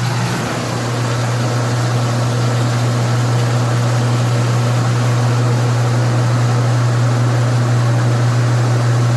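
Top-loading washing machine in its spin cycle, its motor and newly replaced drain pump running with a steady low hum that builds a little over the first second. The machine is draining as it should.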